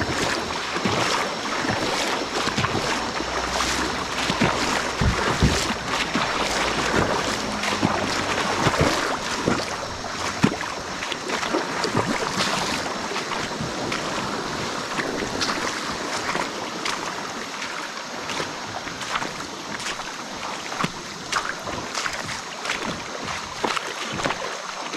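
Water splashing and sloshing around a kayak on a river, with frequent irregular splashes and knocks from paddling.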